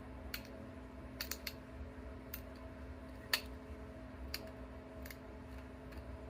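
Sharp little clicks and snaps at irregular intervals, the loudest a little past three seconds in: glass flakes popping off a bottle-glass point as it is pressure-flaked. A steady low hum runs underneath.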